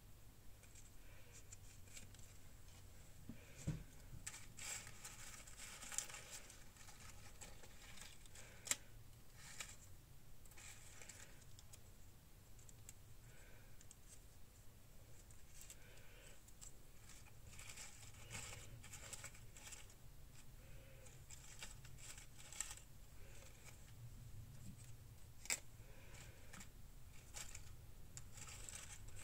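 Faint rustling of paper scraps and stickers as a hand sorts through them, with a few sharp clicks.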